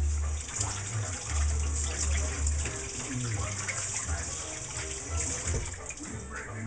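Kitchen faucet running into a stainless steel sink while hands are rinsed under it, with irregular low thuds throughout.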